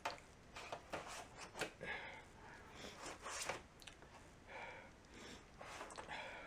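Faint handling sounds of a large plastic light guide plate being lowered and settled into an LCD TV's backlight frame: scattered light taps and clicks with soft sliding rubs.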